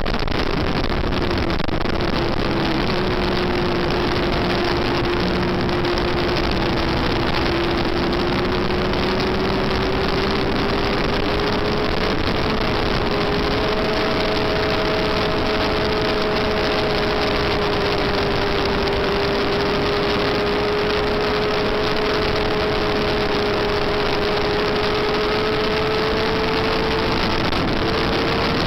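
Yamaha FZR400's inline-four engine at high revs, heard from an onboard camera over a constant rush of wind and engine noise. The engine note holds high and climbs slowly for most of the stretch, then falls off near the end as the throttle is closed.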